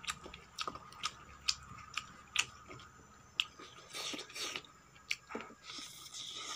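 Close-miked eating sounds: repeated sharp, wet clicks of chewing and mouth smacks, mixed with fingers squishing rice and cabbage-and-pea curry on a steel plate. A short hissy rustle comes near the end.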